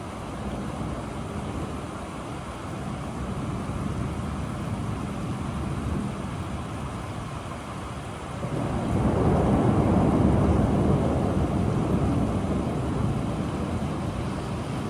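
Rainstorm with a steady low rumble, swelling into a long roll of thunder a little past halfway.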